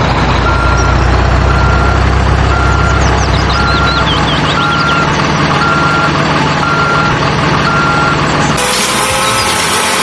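Truck reversing alarm beeping steadily, about one beep every 0.8 s, over a loud engine rumble. The beeping stops about eight seconds in, where the sound changes abruptly to another engine noise.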